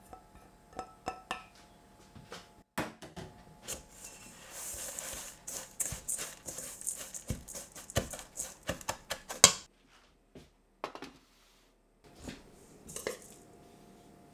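Spatula stirring and scraping buttery crushed digestive biscuit crumbs around a stainless steel mixing bowl, a quick run of scrapes and taps that ends in one sharp knock against the bowl. After a short gap, a few clinks of glass jars near the end.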